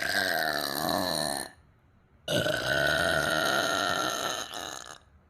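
A girl burping twice: a short burp of about a second and a half, then, after a brief pause, a longer one of nearly three seconds.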